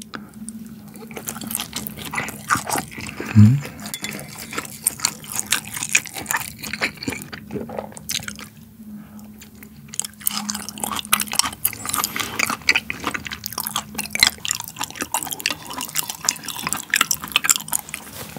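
Wet chewing of raw beef mungtigi sushi: many small sticky, smacking mouth clicks and squelches, with one louder low sound about three and a half seconds in.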